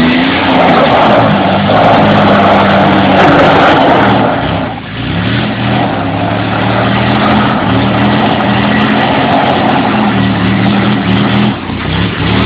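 Jeep Wrangler YJ engine revving hard under load as it crawls through a deep off-camber rut. The revs climb at the start, drop briefly about five seconds in, then pick up again.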